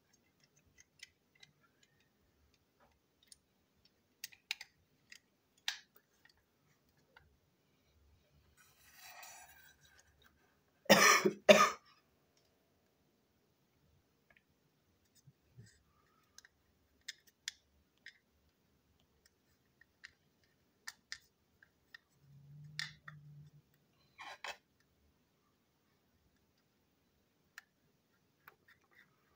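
Small plastic clicks and taps as the parts of a toy Harvey crane engine are handled and a screwdriver works a screw in its body shell. About eleven seconds in there is a brief, louder double thump.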